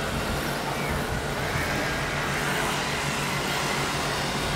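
Air-conditioner outdoor condenser unit running: a steady low hum with a constant rushing noise over it.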